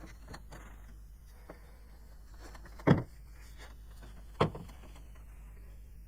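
Two sharp knocks about a second and a half apart, with fainter clicks and small handling noises between them over a low steady hum.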